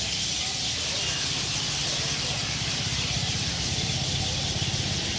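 A large flock of birds chirping all at once, their calls blending into a dense, continuous chatter. A low engine rumble runs underneath, growing stronger after about a second and a half.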